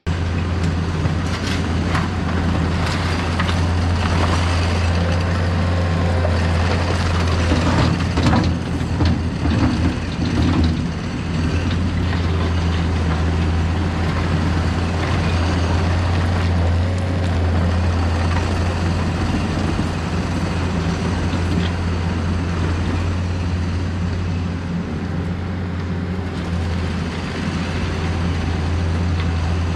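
Diesel engine of a skid-steer loader running steadily as it pushes backfill dirt, with a stretch of clatter and heavier engine load about eight to eleven seconds in.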